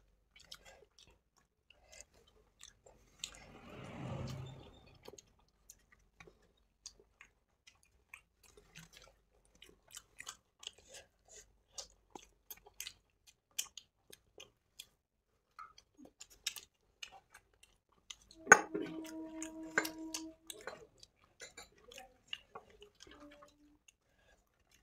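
Close-up eating sounds of idli, dahi vada and sambar: soft chewing and small wet mouth clicks throughout. About three-quarters of the way through, a louder sharp knock rings on briefly as a short steady tone.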